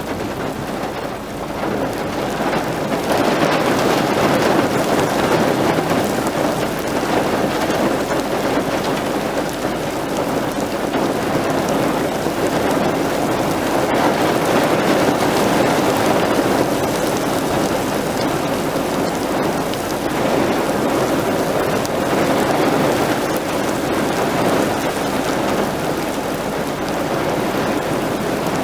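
Heavy rain falling, a dense steady hiss that slowly swells and eases.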